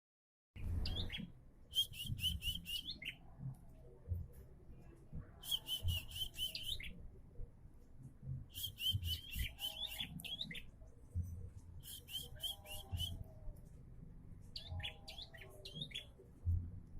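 Prinia singing: five bursts of rapid, repeated chirping notes, each about a second long and a few seconds apart, over a faint low rumble.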